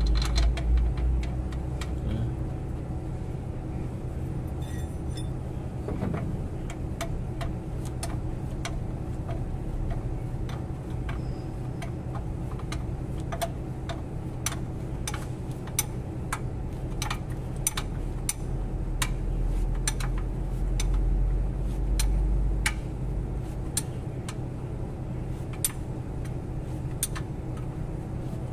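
Ratchet wrench clicking in short, irregular runs as bolts are turned, over a steady low hum. A low rumble swells near the start and again about twenty seconds in.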